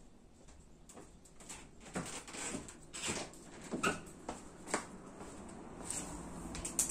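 A person moving about and handling things off to the side: an irregular run of light knocks, clicks and short scrapes, with a sharper knock near the end.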